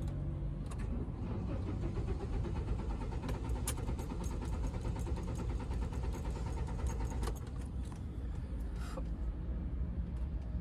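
Car engine cranking on the starter motor for about seven seconds without catching, then stopping: the engine turns over but will not start.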